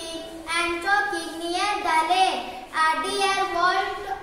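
A young girl singing unaccompanied, in short phrases with held notes and brief pauses between them.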